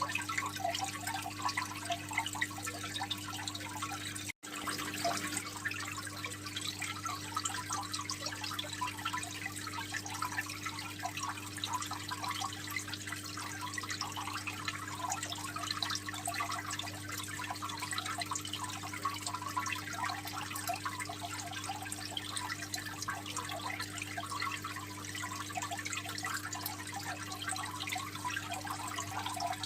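Aquarium water trickling and splashing steadily, a dense fizzing patter over a steady low hum. The sound cuts out for an instant about four seconds in.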